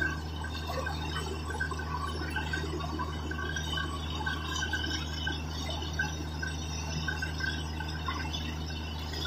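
Borewell drilling rig running steadily with a constant low drone, while water and slurry gush and splash out of the bore around the drill rod: the well has struck water. Light metallic clinks recur throughout.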